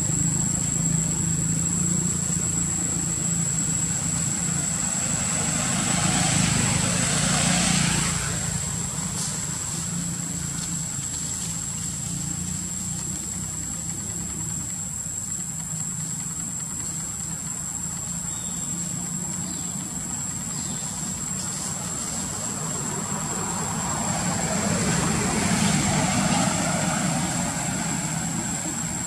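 An engine running steadily in the background, with a low hum that grows louder twice for a few seconds: about six seconds in and again about twenty-four seconds in. A thin, high, steady whine runs over it throughout.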